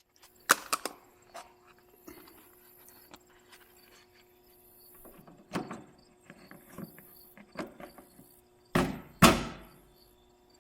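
Steel toolbox being handled: scattered metal clicks and knocks, then two loud clunks about half a second apart near the end.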